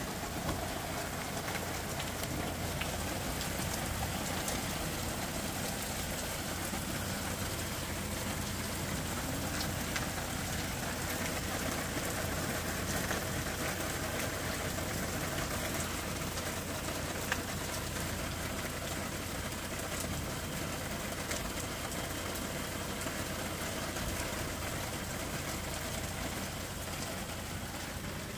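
Garlic and then sliced onions frying in hot oil in a pan, a steady sizzle with a few light clicks.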